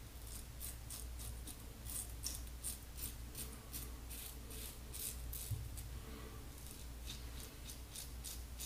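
Fine Marvel double-edge safety razor with a Personna 74 blade cutting stubble through lather in short, quick strokes: a quiet, scratchy rasp, about three strokes a second.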